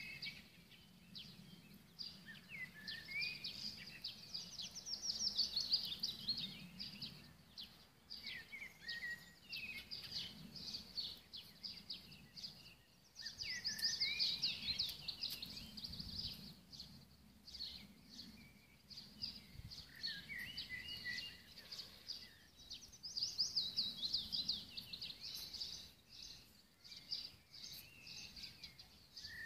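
Wild birds singing: repeated phrases of quick, high trilled notes every few seconds, loudest about five, fourteen and twenty-three seconds in, over a faint low hum.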